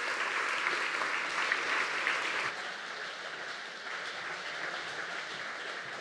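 Audience applauding at the close of a lecture, loudest for the first two and a half seconds, then carrying on more softly and thinning out.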